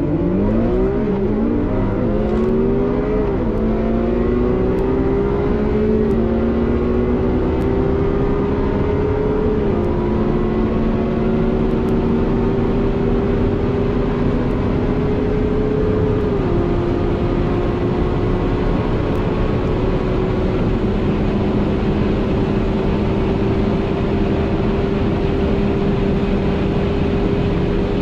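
Two V12 engines, a Ferrari 812 and a Lamborghini Aventador SVJ, at full throttle from a standing start to over 320 km/h, heard together from inside the cabins. Each engine note climbs in pitch and drops at every upshift. The shifts come quickly in the first three seconds, then further apart: one at about ten seconds, another at about sixteen and one near twenty-one.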